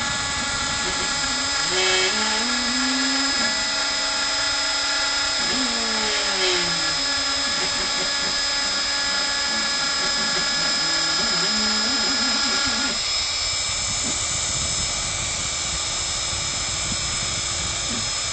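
Hobby CNC router engraving wood: the spindle runs steadily with a constant whine, while the stepper motors give short tones that glide up and down in pitch as the axes move the bit along the carving path.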